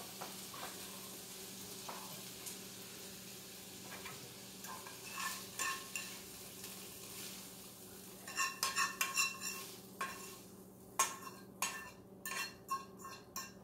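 A hot frying pan sizzling faintly, then, from about eight seconds in, a utensil scraping and clinking against the pan as chicken is scraped out of it onto a plate of fettuccine. A steady low hum underneath.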